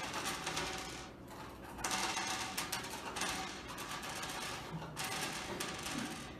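Small lollies being poured out and clattering onto desktops, in several spells of dense small ticks and rattles.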